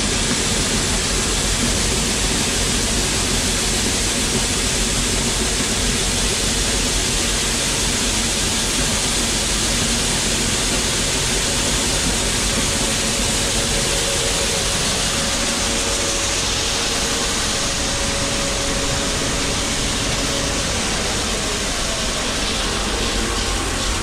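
Shelled corn pouring from a tipped truck bed through a wire grate into a grain auger's hopper, a steady rushing hiss over the low running of the auger and machinery.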